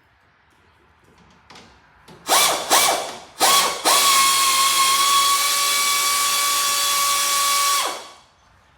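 Power tool motor, a drill-type driver or ratchet with a socket, whirring in three short bursts and then running steadily for about four seconds at an even pitch before stopping, as it backs out a 9/16 bolt holding the engine to the drive shaft.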